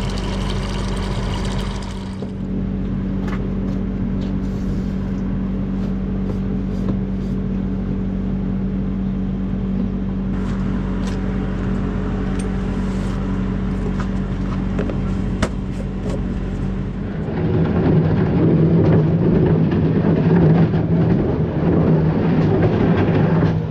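Skid steer engine running steadily, then growing louder and rougher about seventeen seconds in.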